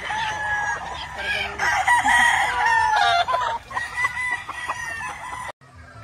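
Several gamefowl roosters crowing over one another, long drawn-out crows overlapping with clucking. The sound cuts off abruptly near the end.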